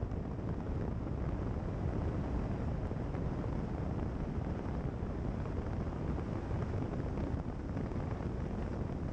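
Wind buffeting the microphone of a camera on the bonnet of a car driving along a gravel road, mixed with road noise. It is a steady, low noise throughout.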